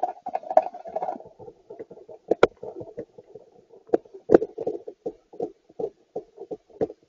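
Thunder rumbling, picked up by a security camera's small microphone as a choppy run of short rumbles, with sharp cracks about two and a half and four and a half seconds in.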